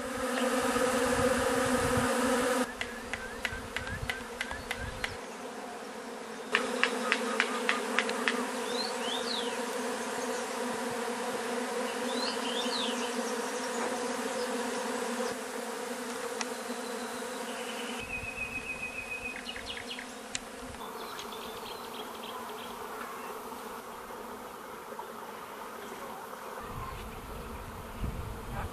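Swarming honeybees buzzing: a steady, even hum of thousands of bees in the air as the swarm flies and gathers into a cluster.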